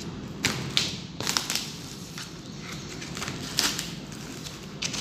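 Parcel wrapping being cut and peeled open by hand: irregular short crackling snaps and rustles of the wrapping material, with a steady low hum underneath.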